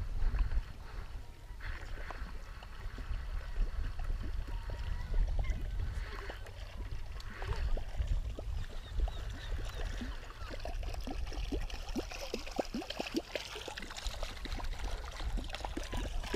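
Wind rumbling on the microphone and water lapping at an aluminium boat, with a run of light splashes and ticks in the last few seconds as a lure is swept through the water beside the boat in a figure-8.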